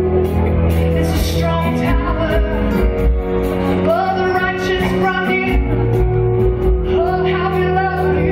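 Live worship band playing a slow song, with a woman singing lead over held bass notes, guitar and keyboard and a steady beat.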